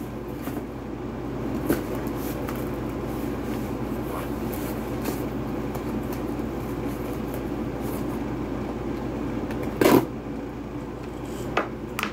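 A cardboard shipping box being handled and opened by hand: scattered light clicks and rustles, with one louder sharp cardboard crack about ten seconds in and another near the end, over a steady background hum.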